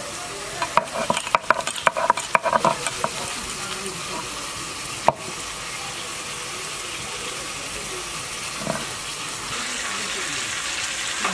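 Stone roller knocking on fried prawns on a flat stone grinding slab (sil-nora): a quick run of sharp knocks in the first three seconds and one more at about five seconds as the prawns are crushed, then a steady scraping grind.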